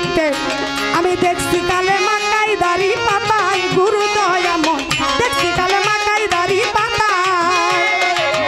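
Instrumental baul folk music: a bowed violin melody with vibrato over a steady hand-drum (tabla-style) rhythm.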